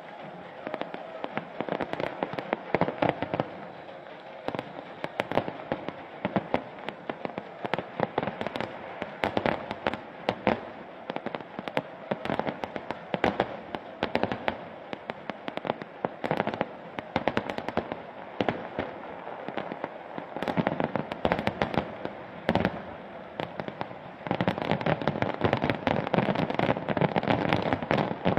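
Fireworks display: a fast, continuous string of shell bursts and crackling reports, growing denser and louder about three-quarters of the way through.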